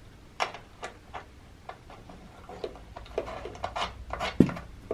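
Scattered small clicks and rubbing as hands handle steel support cables and their screw-on fittings at the side of a red light therapy panel, with one sharper knock near the end.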